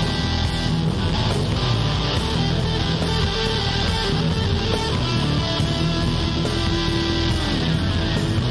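Instrumental blues-rock background music led by electric guitar.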